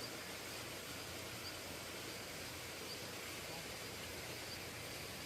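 Steady outdoor ambient hiss with a faint short high chirp repeating about every one and a half seconds.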